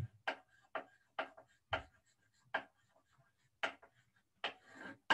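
A scatter of short, irregular clicks and taps, about nine in five seconds.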